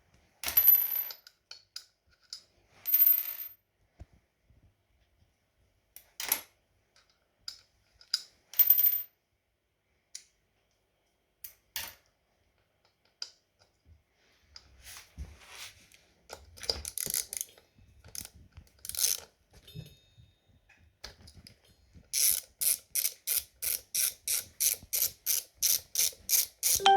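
Metal tools and parts clinking and clattering now and then, then a ratchet wrench clicking in an even run of about three clicks a second from about 22 s to the end, as it turns a nut on the scooter's wheel.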